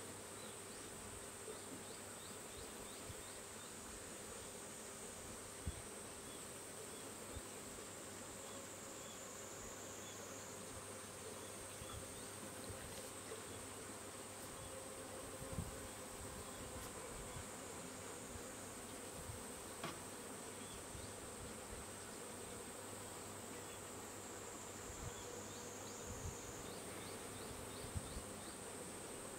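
Faint, steady, high-pitched insect drone that steps up and down in pitch a few times, with a few soft knocks now and then.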